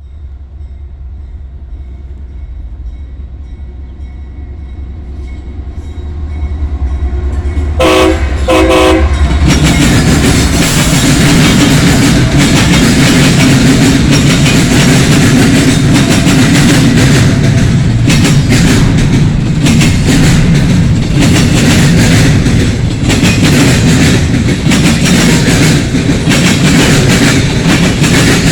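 CSX freight train led by GE diesel locomotives approaching with a low rumble, sounding two short horn blasts about eight seconds in, then the lead locomotives and cars passing close by with loud, steady engine and wheel-on-rail noise.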